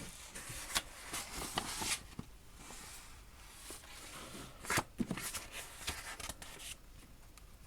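Paper drawing sheets being handled and leafed through: soft rustling with scattered light clicks, a little louder around two seconds in and again about five seconds in.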